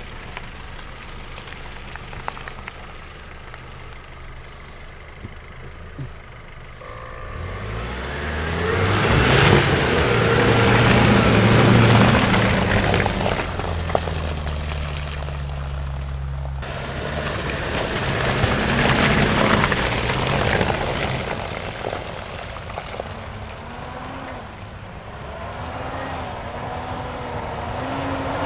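Off-road vehicle engine revving under load: it climbs in pitch about seven seconds in, holds loud for several seconds, drops off, then revs up again, with a rising whine near the end.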